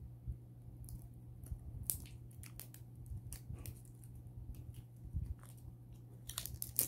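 Faint clicks and crinkles of a clear plastic seal being worked off a small cosmetic tube by hand, with a louder run of crinkles near the end.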